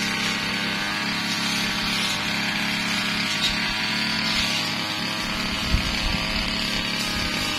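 Brush cutter engine running steadily, with a few brief knocks about six seconds in.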